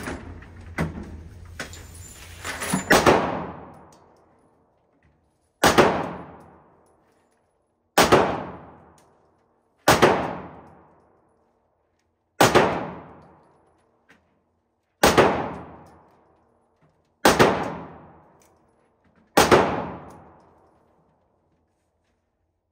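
Handgun shots on an indoor range: about eight single shots, one every two seconds or so, each ringing out in the enclosed lane. A few light knocks and clicks of gun handling come first.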